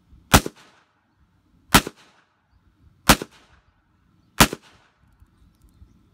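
Four 9mm pistol shots from a Glock 43, evenly spaced about a second and a half apart, each a sharp crack with a short echo.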